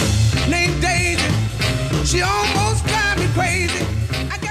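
Background music: an upbeat rock-and-roll song with a singing voice over a steady bass line and beat.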